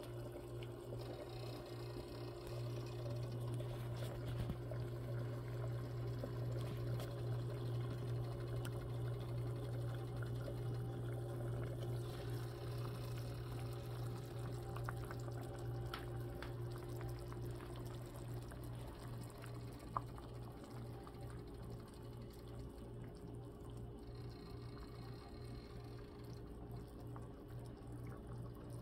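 Pot of chicken and vegetable soup boiling, a steady bubbling over a constant low hum, with one sharp click about twenty seconds in.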